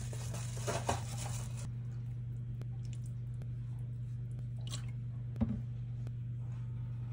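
A steady low hum with a few soft kitchen handling noises over it. There is a brief rustling hiss at the start, faint clicks, and a single knock about five and a half seconds in, as soy sauce is spooned over raw ground chicken in a glass dish.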